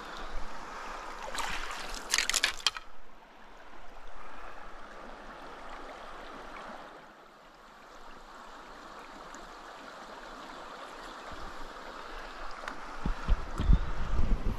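Shallow stream riffle running over gravel, with a short burst of splashing about two seconds in and low rumbling bumps near the end.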